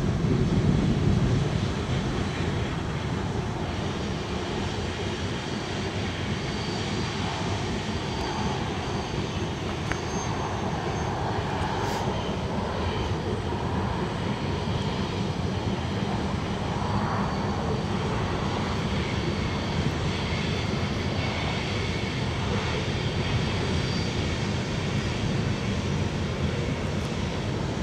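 Steady rumble of a heavy loaded coal train rolling by: the wheels of its coal hopper cars running on the rails.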